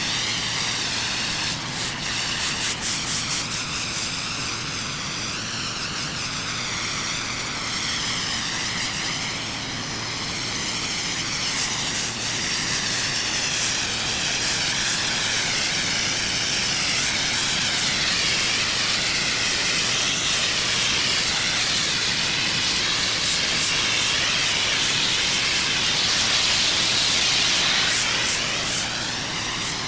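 Pressure washer spraying high-pressure water onto a concrete driveway: a steady hiss whose tone wavers up and down.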